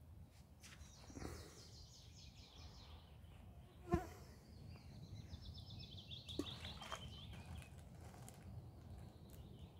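High insect trills in bursts over a quiet lakeside. A ball of groundbait plops into the water about six and a half seconds in, after a sharp knock a little earlier.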